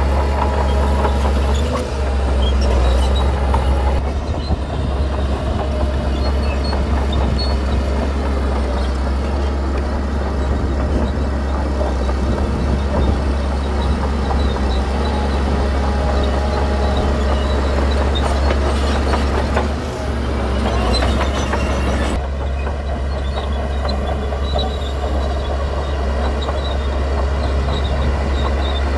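Heavy diesel earth-moving machinery running continuously, with a steady deep engine drone and a dense metallic rattle over it.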